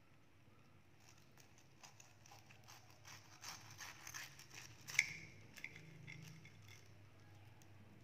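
Knife cutting through a crisp toasted tortilla wrap: a run of faint crackles starting about a second in and thickest after three seconds, then a sharp clink with a short ring about five seconds in as the blade meets the ceramic plate.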